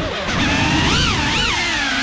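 FPV racing quadcopter's brushless motors whining, the pitch swooping up and down quickly as the throttle is punched and eased through a roll, over a rough rush of prop wash and wind.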